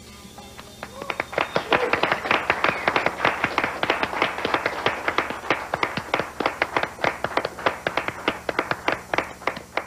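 The last notes of a rock song die away, then a studio audience applauds. The clapping starts about a second in and thins out near the end.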